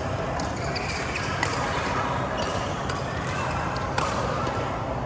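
Badminton rally: sharp racket-on-shuttlecock hits about once a second, with short squeaks and a steady background of court noise.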